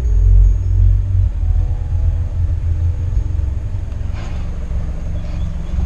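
Car audio subwoofer playing bass-heavy music, a deep pulsing low bass that is strongest in the first second or so and then keeps going a little lower.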